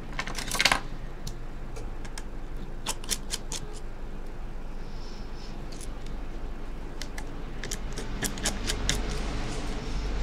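Small metal repair tools, tweezers and a precision screwdriver, clicking and tapping against an opened iPhone 6 Plus and its small parts on a silicone mat: scattered sharp clicks, the loudest a quick cluster about half a second in and a run of them near the end, over a steady low hum.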